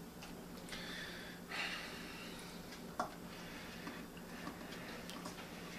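A man gnawing at a sealed tin can with his teeth: faint breaths and soft scrapes, with one sharp click about three seconds in.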